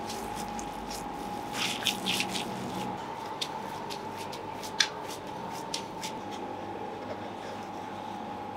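Gloved hands kneading and squeezing spiced minced mutton into a ball, with soft wet squelches and a few sharp pats, the sharpest about five seconds in, over a steady background hum.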